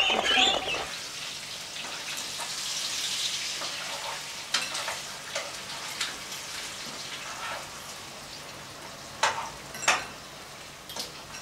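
A fork or spoon clicking against a bowl a handful of times as salad greens are mixed, over a steady hiss. It opens with a moment of hen clucking.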